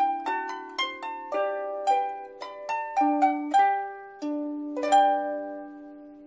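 A 22-string Chelsea lever harp is plucked note by note through the closing phrase of the tune. The last chord comes about five seconds in and is left to ring and fade.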